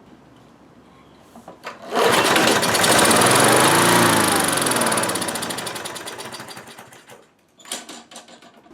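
Briggs & Stratton Sprint single-cylinder lawn mower engine catching and running loudly with a fast, even firing beat, then fading and dying out after about five seconds. A few clicks follow near the end.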